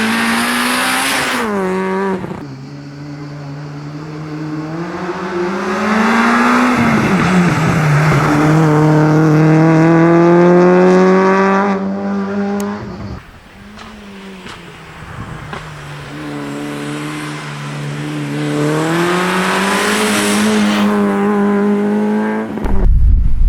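Race car engine under hard acceleration, its note climbing and then dropping sharply at each gear change. It eases off briefly about thirteen seconds in, then pulls again. A loud low rumble cuts in near the end.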